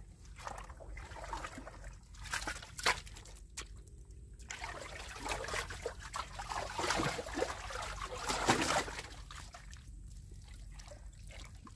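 Wet mud squelching and water sloshing as arms dig by hand into a deep, water-filled burrow in soft tidal mud. It comes in irregular bursts, louder about three seconds in and again around seven to eight and a half seconds.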